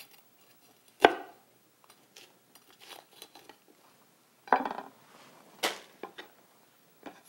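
Chef's knife cutting through a red bell pepper and knocking on a wooden cutting board, as pepper pieces are set down on the board. There is a sharp knock about a second in, a short cluster of knocks past the middle and another soon after, with faint clicks between.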